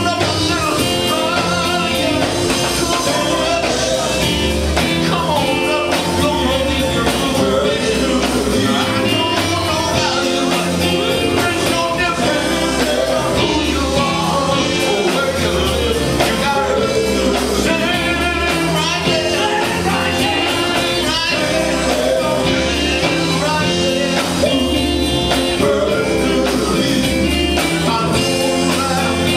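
Live gospel music: male voices singing with a band of electric guitars, bass guitar, drums and keyboard, over a steady beat.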